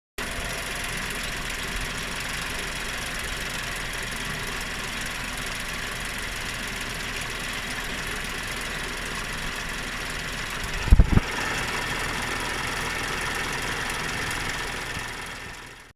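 BMW N55 turbocharged inline-six idling steadily with a knocking noise from the engine. A brief low thump comes about eleven seconds in, and the sound fades near the end.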